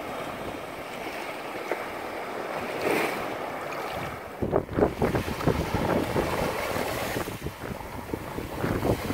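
Small surf washing up onto a sandy beach, with wind buffeting the microphone in uneven gusts that get stronger from about halfway in.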